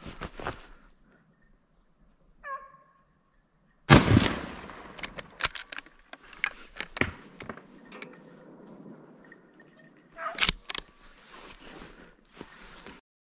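Two gunshots about six and a half seconds apart, fired at a young wild boar: the first very loud, with a long echo rolling away; the second sharp and shorter.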